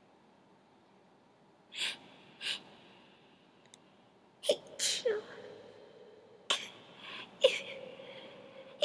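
A girl sneezing several times in quick succession, starting about two seconds in, with short sniffs and breaths between the sneezes.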